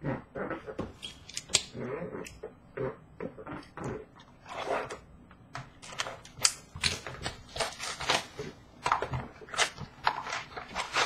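A sealed hobby box of hockey trading cards being handled, torn open by hand and its packs pulled out: a dense run of sharp, irregular crackles and taps of wrapping and cardboard.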